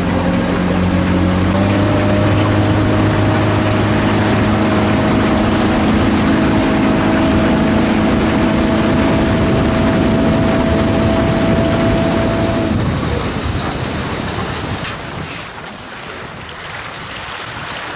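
Outboard motor of a Real Craft 470 aluminium motorboat running steadily under way, its pitch stepping up slightly about a second and a half in, with water rushing past the hull. The engine sound stops about two-thirds of the way through, giving way to wind and lapping water.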